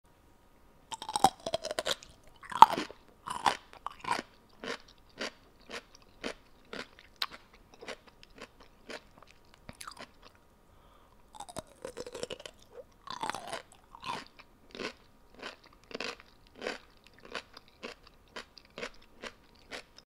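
A person chewing crunchy food close to the microphone. A few loud crunching bites are followed by steady chewing at about two chews a second. After a short pause about ten seconds in, come another loud crunchy bite and more rhythmic chewing.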